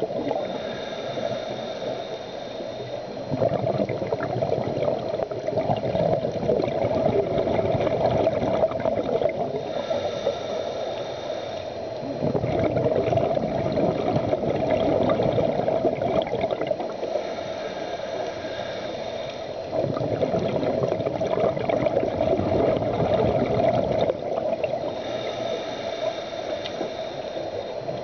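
Scuba diver breathing through a regulator underwater: a hissing inhale with a faint whistle, then a long bubbling exhale, repeating about every eight seconds, four breaths in all.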